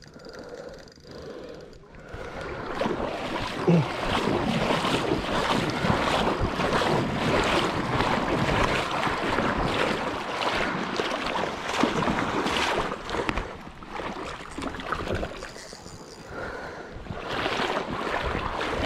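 Water splashing and sloshing close to the microphone, mixed with wind noise on the mic. It starts about two seconds in, runs loud and steady for about ten seconds, eases off, then comes back near the end.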